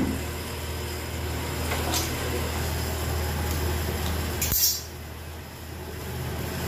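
A steady low hum, with a few faint knocks and clinks of handling about two seconds in. A short hiss comes at about four and a half seconds, after which the hum drops away and the sound goes quieter.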